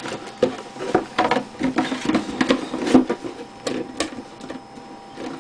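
Cardboard packaging box being handled by hand: the inner lid and flaps pressed and slid shut, with irregular taps, knocks and scrapes of card, which thin out near the end.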